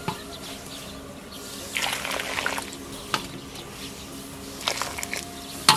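Broth being ladled out of a wok: liquid pouring and splashing in short bursts, with a couple of sharp knocks, the loudest at the very end.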